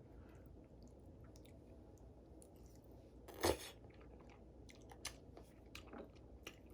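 A person chewing a mouthful of noodles, with one louder noisy burst about three and a half seconds in and a few small clicks after it.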